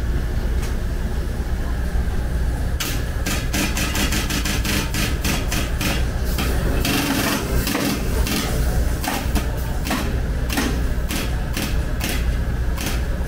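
Hammer tapping on car-body sheet metal: a quick, irregular run of sharp knocks, several a second, starting about three seconds in, over a steady low hum.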